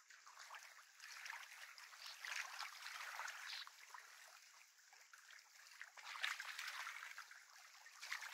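Small waves lapping and splashing against a lakeshore, faint and uneven, swelling twice.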